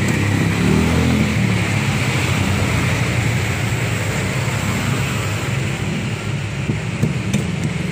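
A steady low mechanical rumble, like a running engine, with a few sharp clicks about seven seconds in as a kitchen knife's tip is pushed through the metal lid of a condensed milk can.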